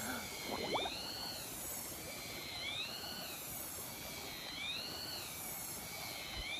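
A bird calling over and over, a single rising-then-falling whistled note about every two seconds, over the steady rush of stream water.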